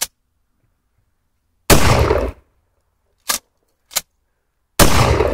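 Two shots from a 12-gauge pump-action shotgun, the first about two seconds in and the second near the end, each with a short ringing tail. Between them the pump is racked with two sharp clacks, and a single click comes right at the start.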